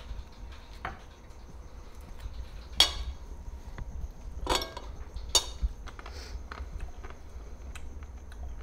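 Cutlery clinking against plates while people eat: three sharper clinks with a short ring, among lighter taps and ticks.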